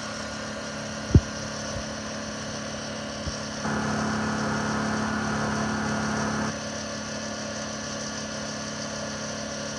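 Honda EU2000i inverter generator running steadily, with a sharp knock about a second in. About four seconds in, a 110-volt Lincoln welder strikes an arc and holds a short weld for about three seconds, louder than the generator, ending suddenly.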